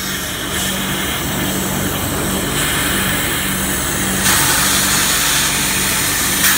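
Compressed air hissing, loudest from about four seconds in to near the end, over a steady low hum.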